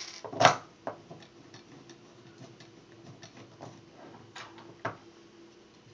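Small clicks and taps of metal M4 screws and 3D-printed plastic parts being handled and fitted together by hand. A sharp knock comes about half a second in, and more knocks come around a second and near five seconds.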